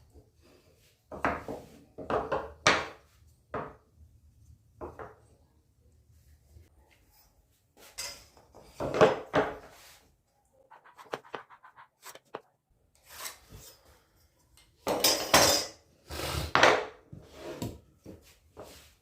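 Tools and hardware being handled and set down against wood: intermittent clattering and knocks in short clusters with pauses between.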